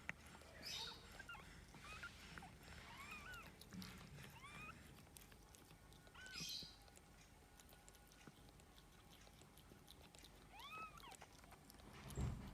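Faint, high-pitched mews of newborn kittens: about seven short, arching squeaks scattered through, with a soft thump near the end.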